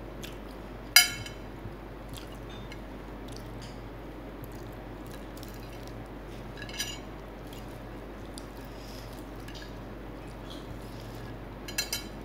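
Sharp ringing clinks against a ceramic plate, one about a second in, a smaller one near seven seconds and two close together near the end, between small crackling and squishing sounds of crispy fried chicken being torn apart by hand and eaten.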